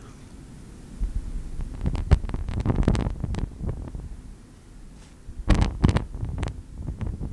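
Wind whip Foley: quick swishes of something whipped through the air. A cluster of them starts about a second in and lasts a couple of seconds. A second burst of sharper swishes comes a little after halfway.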